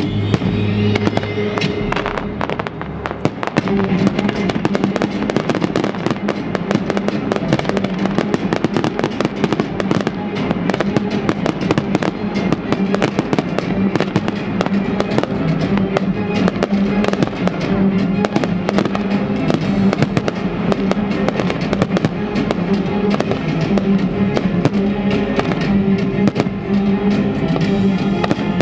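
Aerial firework shells bursting and crackling in rapid succession, dense sharp reports throughout, over loud accompanying music with a steady pitched backing.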